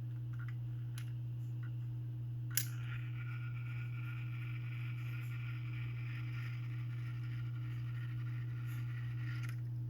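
Urgos 312 triple-chime clock movement: a click as the chime train releases, then its gear train whirring steadily for about seven seconds before stopping abruptly. The gears run quietly without grinding, though the movement is due for fresh oil on the pivots.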